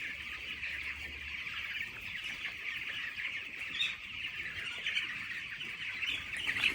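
A large flock of chicks, about 17 days old, peeping continuously in a dense, high chorus.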